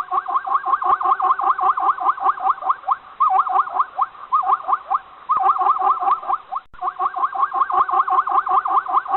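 An animal calling in fast runs of short, pitched up-and-down calls, about six or seven a second, broken by brief pauses.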